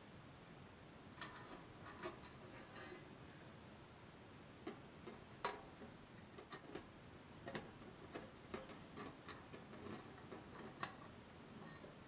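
Faint, irregular clicks and ticks, a dozen or so spread through: wood crackling in the firebox of a Winnerwell Nomad wood stove, with light metal clinks as the round lid over the stove-top hole is set in place with its lifter tool.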